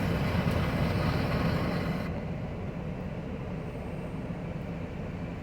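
Heavy truck engine idling with a steady low rumble. A higher hiss laid over it stops about two seconds in.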